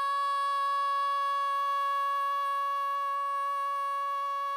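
A female singing voice holding one long high note, perfectly steady in pitch and without vibrato.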